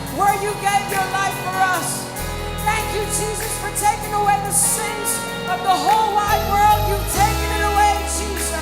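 Live gospel worship band playing, with a singer's melodic vocal lines over sustained bass and keyboard chords.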